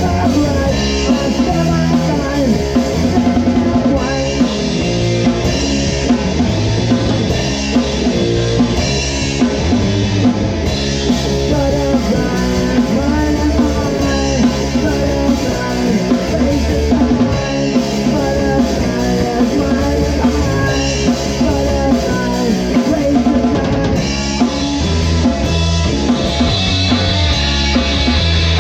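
Rock band music with a full drum kit driving a steady beat, snare and bass drum prominent over sustained bass and other instruments.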